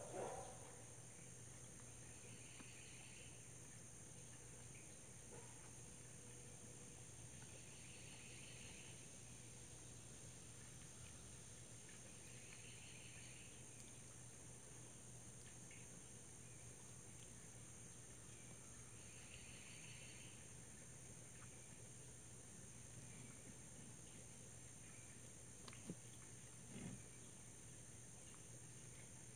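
Near silence outdoors, with faint insect calls: a steady high-pitched insect chorus and a short pulsing call repeated four times, a few seconds apart. Two faint clicks come near the end.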